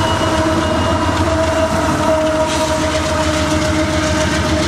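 Union Pacific diesel locomotive hauling a loaded coal train past at close range: engine rumble and wheels on the rails, with a steady multi-tone air horn held throughout.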